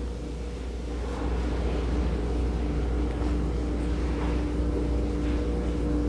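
A steady low rumble with a constant mechanical hum, slightly louder from about a second in.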